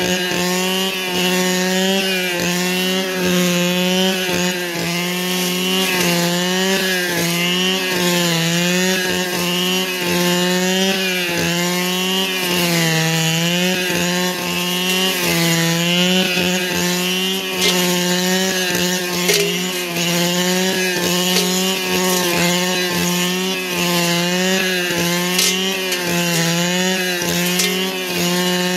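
Two-stroke brushcutter engine held steadily at high revs, its pitch dipping briefly now and then.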